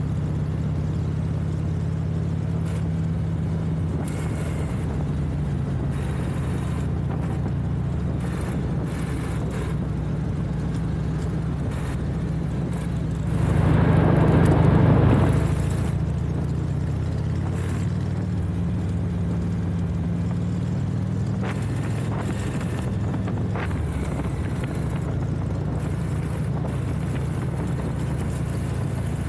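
1992 Harley-Davidson Heritage Softail Classic's air-cooled 1340 cc Evolution V-twin running steadily under way. About halfway through, a louder rush of noise swells for roughly two seconds, then fades.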